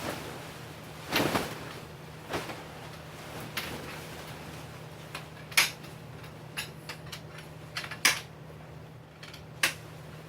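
Tent gear being handled while a tent is pitched: scattered clicks, knocks and clatter, about one a second, the sharpest about halfway through, over a steady low hum.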